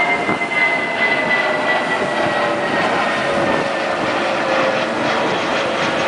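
An aircraft passing, its engine tone slowly falling in pitch over a steady hiss.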